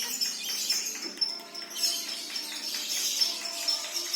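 Many caged lovebirds chattering and trilling together, a dense, rapid, high-pitched twittering.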